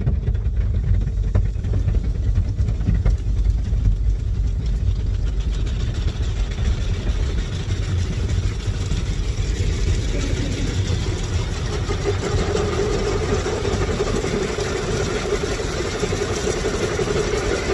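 Automatic car wash heard from inside the car's cabin: a steady low rumble, with water and foam spraying against the body growing louder about six seconds in, and a steady machine hum joining about twelve seconds in.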